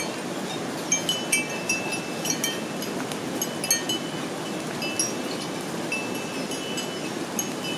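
Small bells clinking irregularly in short, high, ringing tones over a steady rushing noise.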